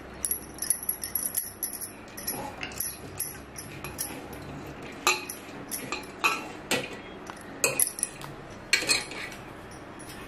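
A steel serving spoon clinking and scraping against a stainless-steel pot: a string of sharp metallic taps at uneven intervals, the first few with a brief high ring.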